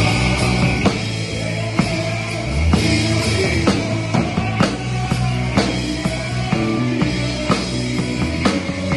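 Live band playing an upbeat gospel groove on electric bass, electric guitar, drum kit and keyboard. Sustained bass notes run under drum accents that fall about once a second.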